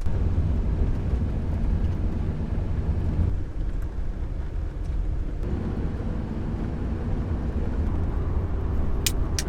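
A vehicle running or driving, with a steady low rumble from the engine and road. A few sharp clicks come near the end.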